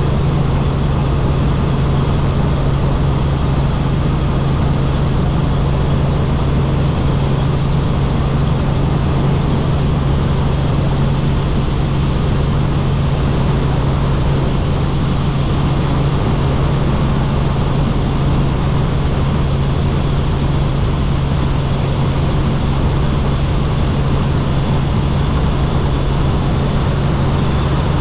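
Helicopter in flight: a steady, loud drone of the rotor and turbine engine, with a constant low hum under a wide rushing noise.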